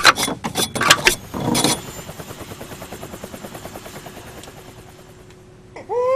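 Metal shotgun shells clicking as they are drawn from a rack and handled for loading into a large revolver, a run of sharp clicks, followed by a fast, even ticking that slowly fades. A crying voice begins near the end.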